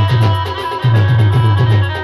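A band playing timli dance music: deep drum beats in a fast, steady rhythm under a sustained melody line.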